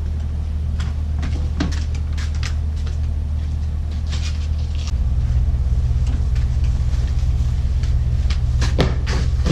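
Lengths of PVC pipe clattering and knocking as they are handled and laid on a concrete patio. Under them is a steady low rumble that gets louder about halfway through.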